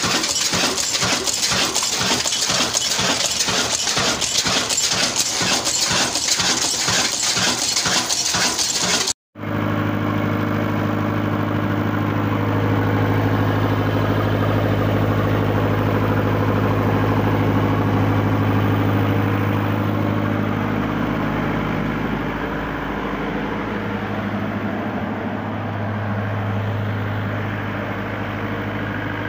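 Diesel engines: first a loud, rhythmic clatter of about three beats a second from an old diesel engine. After a short break about a third of the way in, a diesel generator engine runs steadily with a strong low hum.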